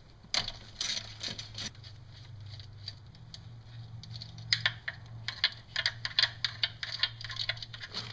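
Small hand ratchet clicking and metal tapping as the 10 mm fuel-rail bolts are backed out on a 4.7 L V8: a few clicks at first, then a quick run of sharp clicks over the second half, over a steady low hum.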